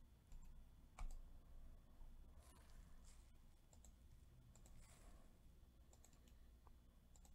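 Faint, scattered clicks of a computer mouse and keyboard over a low hum, with one louder click about a second in.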